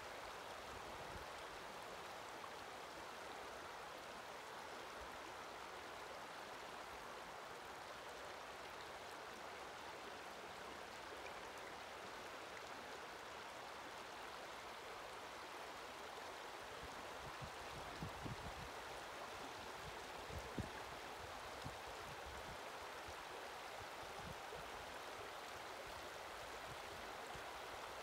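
Gunnison River running shallow over rounded cobbles in a riffle, a steady rushing and babbling of water. A few brief low thumps come a little past the middle.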